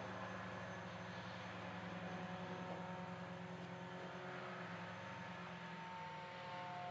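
Faint, steady mechanical hum, low-pitched, with a few higher steady tones that grow louder near the end.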